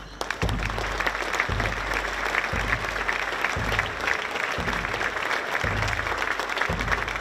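Bass drum beaten at a steady marching beat, about one stroke a second, over sustained applause from a large crowd.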